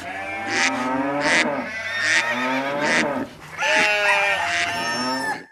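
Recorded farm animal calls overlapping: cattle mooing with bleating mixed in, several calls one after another.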